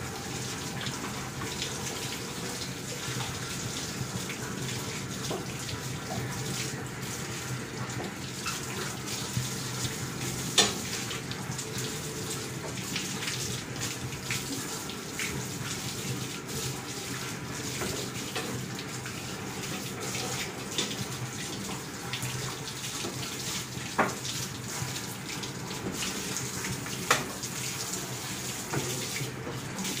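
Water from a garden hose spraying steadily and splashing onto a sheep's wet coat and the floor as it is washed. Three short sharp knocks cut through it, one about a third of the way in and two near the end.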